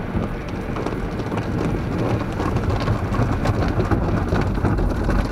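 Water spray from a tunnel car wash pattering and drumming on a car's windshield and body, heard from inside the car, over a steady low rumble.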